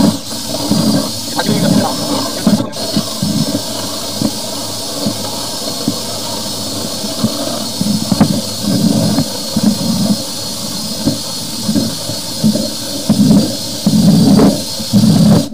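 High-pressure drain jetter running, its red hose fed by hand down a kitchen sink drain pipe: a steady hiss of water jetting inside the pipe, with irregular low gurgling surges and knocks.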